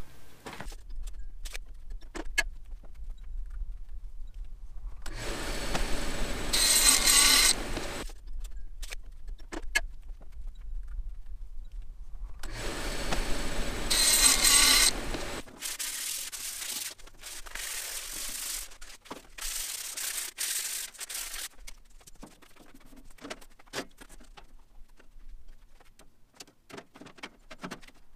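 A belt-driven contractor table saw runs and makes two cuts through a thin wood panel, each a few seconds long, a hiss with a steady high whine over it. The motor then stops, and scattered knocks and clicks of handling parts follow.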